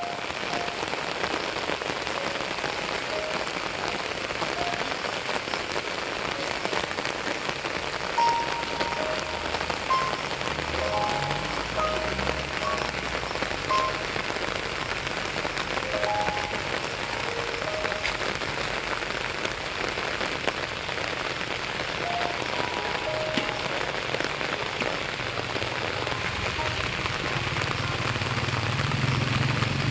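Background track of a steady rain-like hiss with a slow, sparse melody of single notes over it. A low rumble rises near the end.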